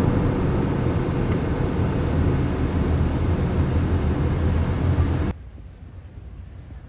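Road noise of a car travelling at about 80 km/h: a steady tyre and wind rumble. It cuts off abruptly about five seconds in, leaving a faint, quiet hiss.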